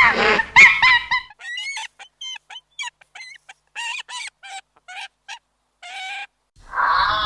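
Domestic fowl calling: a few loud calls, then a run of short, separate call notes about three a second. Music comes in near the end.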